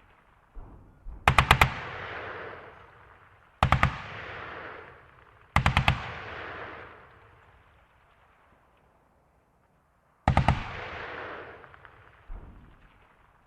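Machine gun firing four short bursts of four or five rounds each, every burst trailing off in an echo, with a few fainter single shots between them.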